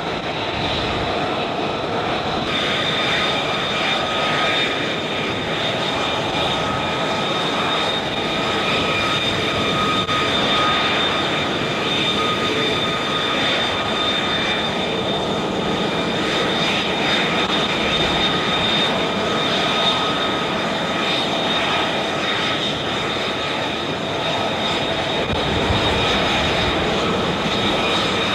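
F-35 Lightning II fighter jet's engine running continuously: a steady roar with high whining tones over it, the highest whine growing stronger a couple of seconds in.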